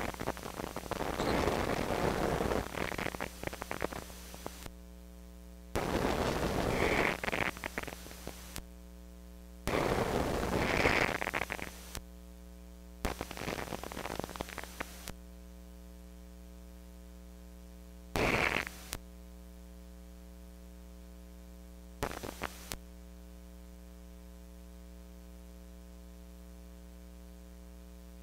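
A person's breathing close to the microphone: a series of breathy rushes, four longer ones in the first fifteen seconds and two short ones later, with a faint steady electrical hum in the pauses.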